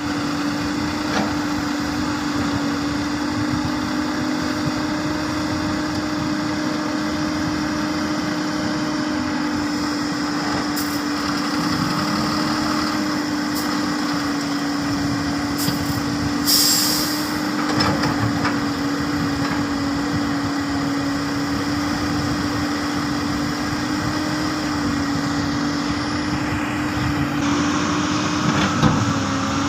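Hyundai R330LC-9S excavator's diesel engine running steadily at work, with one short hiss of air about sixteen seconds in and a few sharp knocks near the end.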